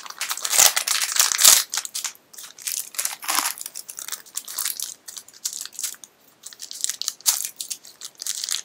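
Foil blind-bag wrapper crinkling as it is torn open, loudest in the first couple of seconds with two dull bumps, then lighter crackly rustling as the pin is taken out.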